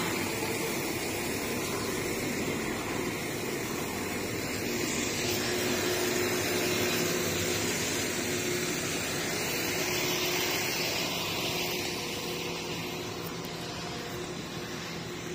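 NI Railways diesel multiple unit running past along the platform and moving away, a steady rush of engine and wheel noise that fades slowly over the last few seconds.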